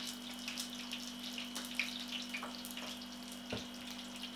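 Oil sizzling in a frying pan of deep-frying food, a steady hiss with scattered crackles and pops. A steady low hum runs underneath, and there is a single soft knock about three and a half seconds in.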